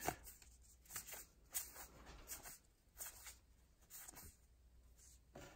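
Faint rustling and clicking of baseball cards being leafed through by hand, card sliding over card in short, irregular strokes about once or twice a second.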